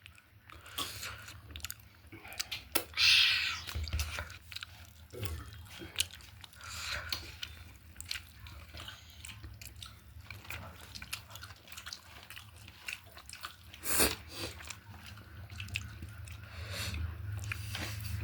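A person chewing and biting food close to the microphone: repeated wet clicks and crunches, with a louder noisy burst about three seconds in and a sharp knock about fourteen seconds in.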